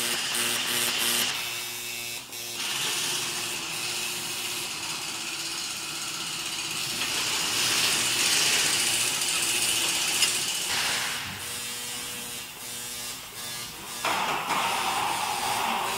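A bench marking machine buzzing with a steady hum as it stamps a metal part, then the hiss and scattered clicks of factory work.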